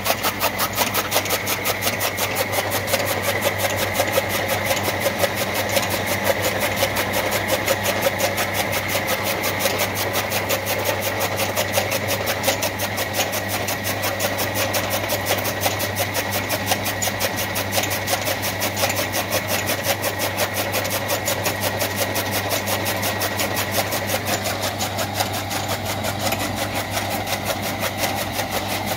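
Electric-motor-driven chaff cutter (toka machine) running steadily while chopping green fodder: a constant motor hum under a rapid, even clatter from the flywheel's cutting blades.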